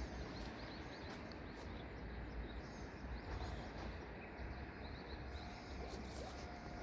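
Outdoor ambience: small birds chirping at scattered moments over a steady low background rumble.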